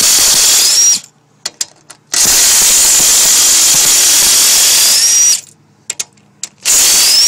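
Cordless 3/8-inch-drive impact wrench hammering in three bursts, backing out the sump bolts of a Briggs & Stratton engine. Each burst ends with a short rising whine, and small clicks fall in the pauses between bursts.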